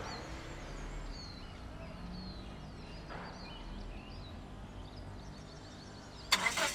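Birds chirping lightly over a low, steady vehicle engine hum. A sudden loud burst of noise comes near the end.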